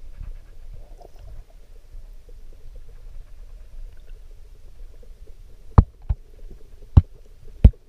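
Muffled underwater rumble of water moving, heard through a GoPro's waterproof housing, then four sharp clicks in the last two seconds as a hand shifts stones on the seabed and they knock together.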